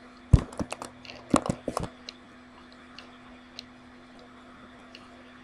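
A quick flurry of sharp clicks and knocks in the first two seconds, the first the loudest, from keyboard and mouse handling at the computer, then a few faint ticks, over a steady low hum.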